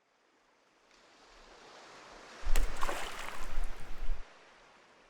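Outdoor water and wind noise. It swells about two and a half seconds in, with a deep rumble and a few sharp splashes or knocks, and fades away again a couple of seconds later.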